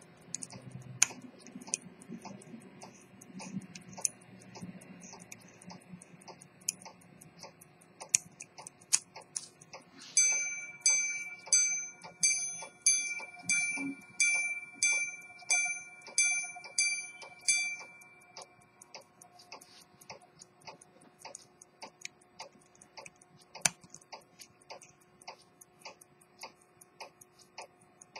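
Swiss quarter-repeater pocket watch ticking steadily. About ten seconds in, its repeater strikes the time on its gongs: about a dozen ringing chimes, roughly two every second, lasting some seven seconds. A few sharp clicks of handling can be heard.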